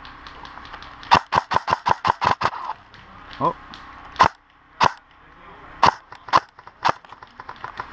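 Airsoft gun firing: a rapid burst of about nine sharp shots, then five single shots spaced about half a second to a second apart.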